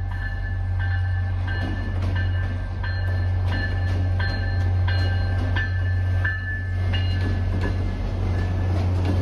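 EMD F40PH-3C diesel-electric locomotive passing at low speed, its engine running as a strong steady drone while its bell rings about twice a second as it arrives at a station. Wheels knock on the rail.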